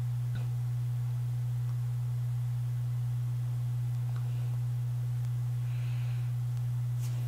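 A steady low hum, one unchanging tone, with no speech; a couple of faint ticks can be heard, one just after the start and one about four seconds in.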